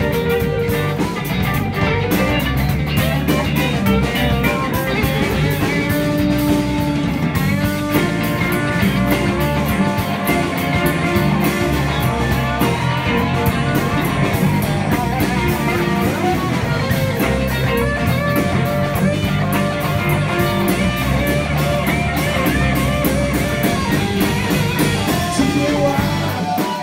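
Band playing an instrumental passage of a blues-rock song, with guitar to the fore over a drum kit.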